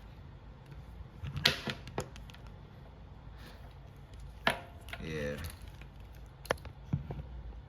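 Sharp clicks and taps from a removed negative battery cable and its IBS adapter being handled and turned over, about five in all, the loudest about one and a half seconds in and again about four and a half seconds in.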